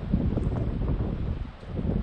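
Komatsu D39 crawler dozer working, its diesel engine and steel tracks heard as a loud, uneven low rumble.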